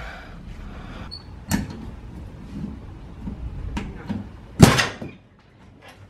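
Metal ratchet buckle of a polyester-webbing tie-down strap clacking as it is worked by hand, a handful of separate clacks about a second apart with one loud, sharp clack about four and a half seconds in.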